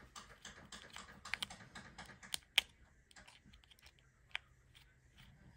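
Light clicking and scratching of a small metal hand tool against the back of a Casio G-Shock watch case as the case back is being removed. A quick run of small clicks, the sharpest about two and a half seconds in, then a few scattered ones, with one more clear click near the end.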